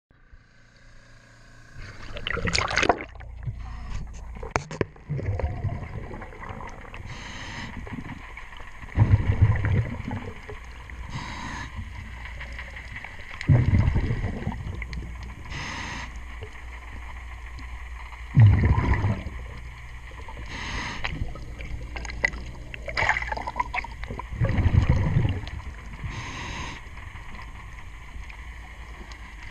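Underwater, a diver breathing through a demand regulator: a short hiss on each inhalation, then a louder low rumble of exhaled bubbles, repeating about every five seconds. Splashing and gurgling in the first few seconds as the diver goes under.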